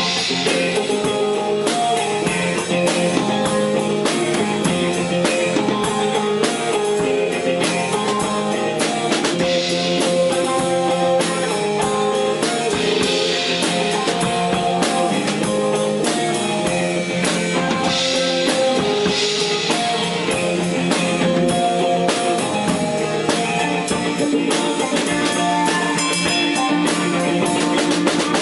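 Live instrumental band music: sustained pitched notes over a steady drum beat, the song played without its vocal.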